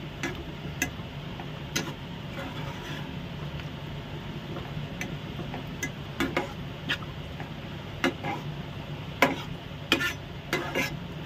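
Slotted spatula stirring a thick yogurt-onion masala in a nonstick frying pan on low heat, with irregular clicks and taps of the spatula against the pan. A steady low hum runs underneath.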